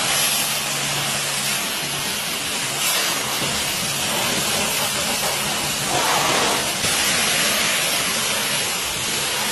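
Pressure washer spray gun jetting water against a car's bodywork, a steady hiss of the spray as it rinses off snow foam.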